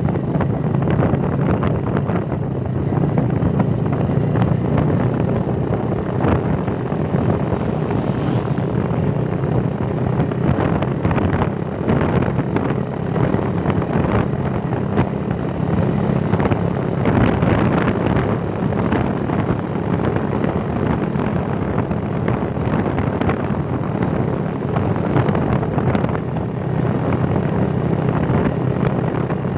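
Small motorcycle engine running steadily at cruising speed, with wind rumbling on the microphone over the engine's hum.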